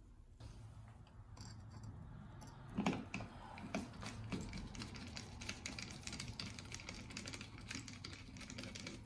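A screwdriver turning the muffler screws on a Homelite XL chainsaw engine, with metal parts handled: a run of quick, light clicks and ticks, and a louder knock about three seconds in.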